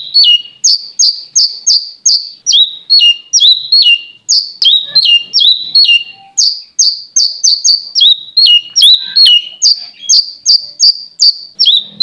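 Cak cungkuk bird singing without pause: a fast, even string of short, clear notes, about two or three a second, most of them sliding down in pitch, mixed with lower notes that rise and then drop.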